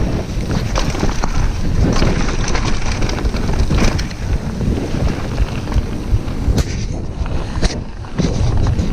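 Mountain bike riding fast down a dirt trail: wind buffeting the microphone over the rumble of the tyres on the ground, with frequent sharp rattles and knocks from the bike over bumps. The noise eases briefly a little before the end, then picks up again.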